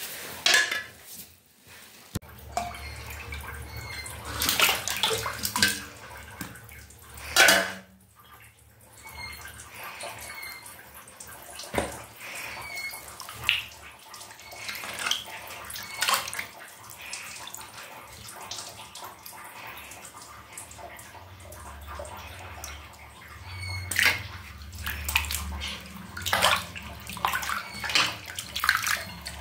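Water sloshing and splashing in irregular bursts as hands rub and turn cut fish steaks in a pot of water, washing them.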